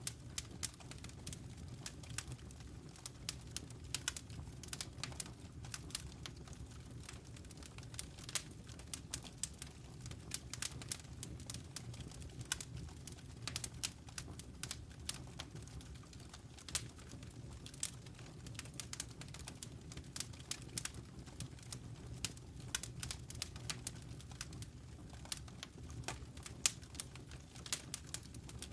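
Fire crackling in a fireplace: irregular sharp pops and snaps, several a second, over a low steady rumble.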